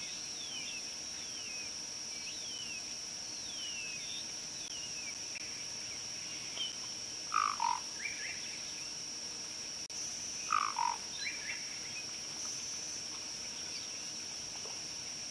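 Outdoor wildlife ambience: a steady high-pitched insect drone, with a quick series of falling whistled calls in the first few seconds. Two louder, lower two-part animal calls, each stepping down in pitch, come about seven and ten and a half seconds in.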